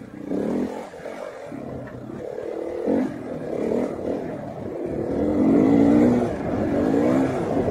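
2018 KTM 500 EXC's single-cylinder four-stroke engine revving and easing off over and over as the enduro bike is ridden, its pitch rising and falling. It is loudest about five to six seconds in.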